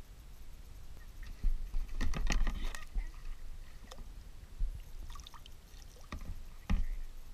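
Kayak paddling: knocks and clunks on the plastic hull and paddle splashes in the water, with a quick cluster of knocks about two seconds in and a sharp clunk near the end.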